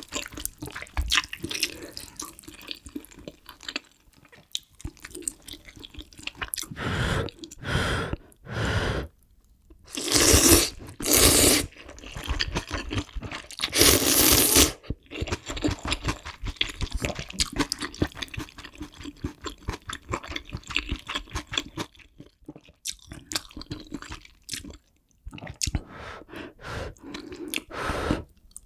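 Close-miked eating of kimchi stew with ramen noodles: soft chewing clicks and mouth smacks throughout. Loud slurps of noodles come twice around ten to eleven seconds in and once more around fourteen seconds.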